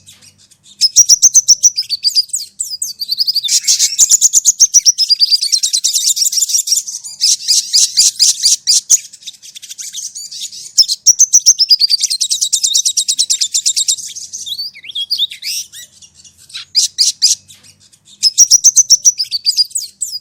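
Sogon (crimson sunbird) singing: rapid, high-pitched trilling phrases that waver up and down, each lasting one to four seconds, repeated with short pauses.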